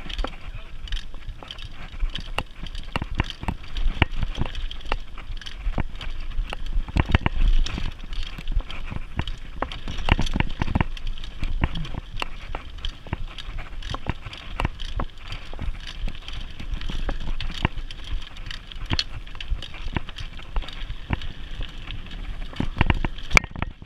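Mountain bike rolling fast down a dirt singletrack, with tyre noise and a constant run of rattles and knocks as it rides over bumps, under a steady low rumble.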